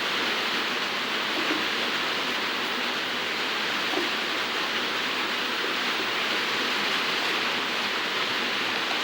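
Steady hiss of rain falling, even and unbroken, with a few faint light knocks.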